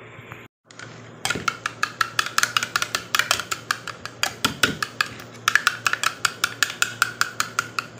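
Spoon whisking yogurt in a ceramic bowl, clinking rapidly against the bowl's side at about six strikes a second. The clinking starts about a second in.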